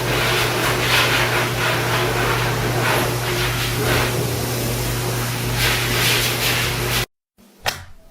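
A machine running steadily: a loud rushing noise over a constant low hum, cutting off suddenly about seven seconds in.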